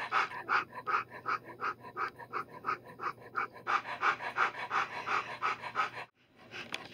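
Alaskan Noble Companion Dog mother panting rapidly and steadily, about three to four breaths a second, while nursing her newborn litter; the panting cuts off suddenly about six seconds in.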